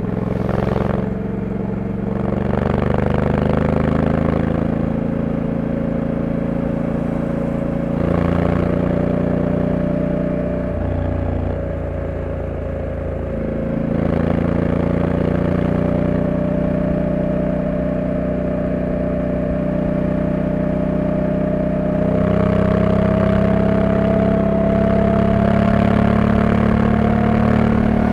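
Honda Africa Twin 1100 DCT's parallel-twin engine on its stock exhaust, running under way at an easy pace. Its pitch and level step up and down several times, climbing a little near the end.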